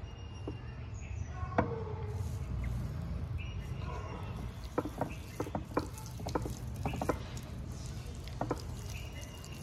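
Hands working wet porotta dough: irregular soft slaps and small clicks over a low steady rumble.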